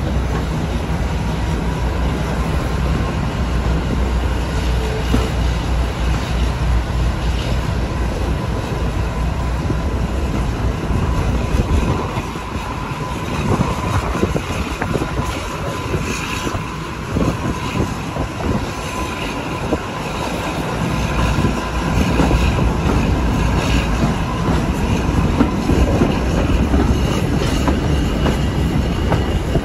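Class 52 'Western' diesel-hydraulic locomotive's twin Maybach engines working a train, heard from the coach behind, over wheels running on the track. The deep engine rumble eases off about twelve seconds in and builds up again some ten seconds later.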